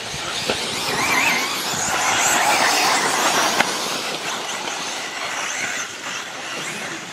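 1/10-scale electric 4WD off-road RC buggies racing on dirt: the whir of their motors and drivetrains with tyres scrabbling on loose dirt. It grows louder from about a second in and eases off after about four seconds, with one sharp click about three and a half seconds in.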